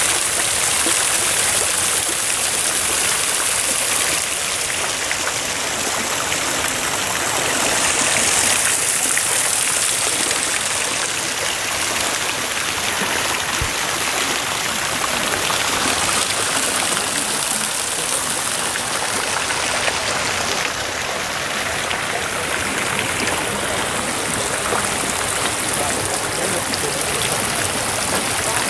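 Water running and splashing steadily from a moss-covered rustic fountain into its round basin.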